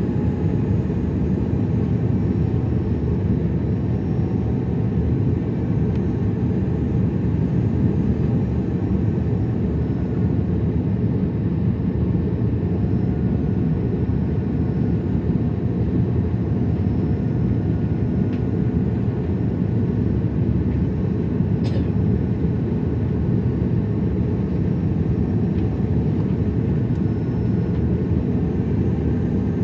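Steady low rumble of an Airbus A330 airliner heard from inside the cabin: engine and airflow noise with a faint steady whine above it.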